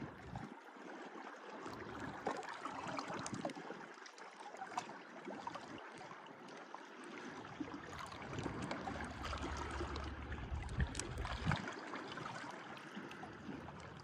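Gentle surf on a beach: small waves washing and lapping at the shore in an even hiss, building a little louder past the middle before easing off.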